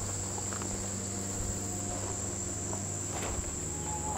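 Insects chirring steadily on one high note, over a low steady hum.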